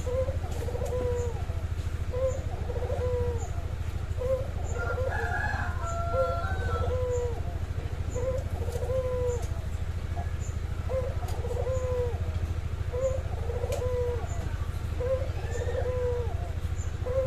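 Barbary dove (burung puter) cooing over and over, the same coo repeated roughly once a second. A higher call from another bird overlaps it for a couple of seconds about five seconds in, and a steady low hum runs underneath.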